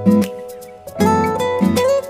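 Background music: an acoustic guitar playing plucked notes that start sharply and fade.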